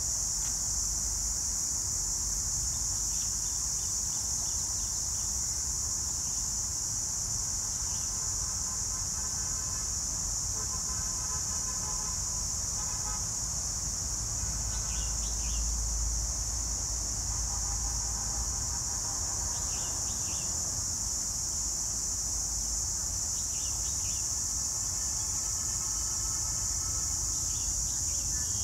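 Steady, high-pitched insect chorus over a low rumble of distant traffic. Brief vehicle horn toots and a few short bird chirps come through now and then.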